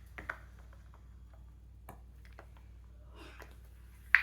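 Silicone bubbles of a mini Pop-It fidget toy being pressed through one after another: a string of short, irregular pops and clicks, the loudest near the end.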